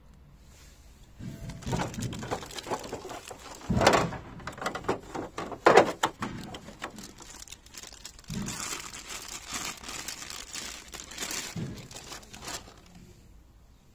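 Clear plastic bag crinkling and rustling in irregular bursts as a handheld tool is unwrapped from it, with a couple of sharper, louder crackles about four and six seconds in.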